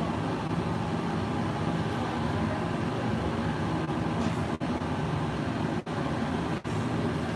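Steady loud rumbling noise with no clear tone or rhythm, cut by three very brief dropouts in the second half.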